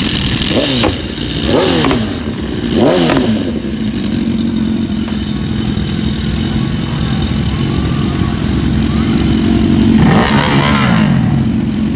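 Large-displacement sport motorcycle engine running at idle and blipped three times in the first few seconds, its pitch falling back after each rev. It is revved again near the end.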